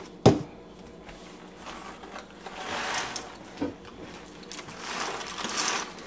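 Coffee grinder grinding beans in two short bursts, one about two seconds in and one near the end, after a sharp click at the start.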